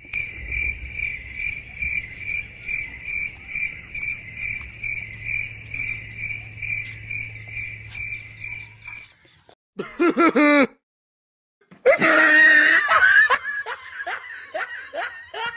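Cricket-like chirping: a steady run of high chirps, about three a second, that stops about nine seconds in. Near the end a loud burst of laughter follows.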